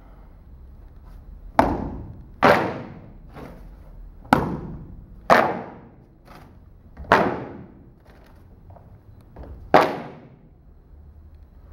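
Large black kung fu fan snapped open again and again: six sharp cracks, irregularly spaced, each ringing out and dying away in the hall, with a few fainter clacks between.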